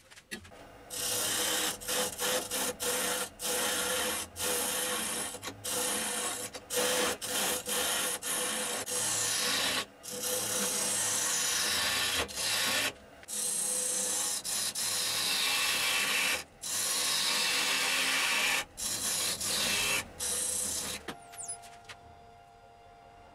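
A turning tool cutting a spinning blank of Unha de Boi wood and resin on a wood lathe: a steady scraping hiss, broken by many brief gaps as the tool comes off the work, with the lathe's steady hum underneath. The cutting stops about three seconds before the end, leaving the lathe running quietly.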